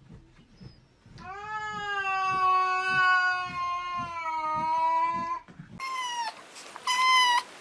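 A cat's long, drawn-out meow lasting about four seconds, rising slightly at the start and then held steady. It is followed by two short, much higher-pitched meows.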